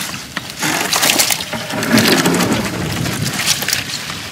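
Wet mesh fish-trap net being shaken out into the bottom of a plastic boat, with the catch dropping onto the hull: an irregular run of crackling, rustling, splashing and slapping, loudest about two seconds in.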